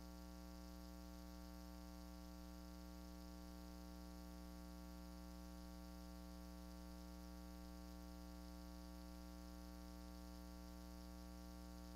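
Near silence: a faint, steady hum and hiss from the recording chain, with no other sound.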